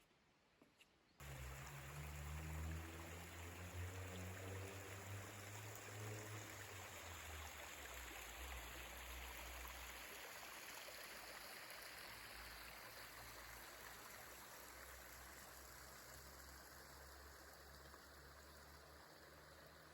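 A stream running: a steady rushing of water that cuts in suddenly about a second in.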